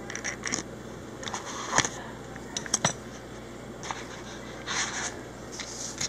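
Small plastic parts of a TSA combination lock being handled with a thin tool: scattered light clicks and short scrapes as a piece is lifted out of the housing, with a sharper pair of ticks about three seconds in.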